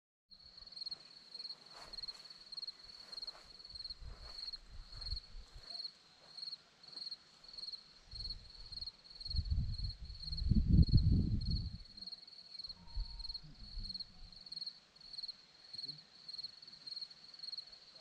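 Crickets chirping in a steady, even rhythm of high-pitched pulses. About halfway through, a low gusting rumble of wind on the microphone swells up and is the loudest sound for a few seconds.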